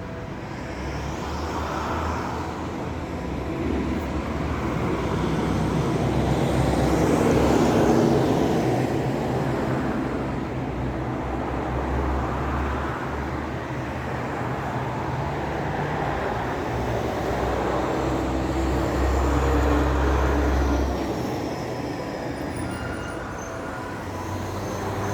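A loud, wavering, trumpet-like drone in the sky that swells and fades, with faint high tones sliding downward over it; its source is unexplained.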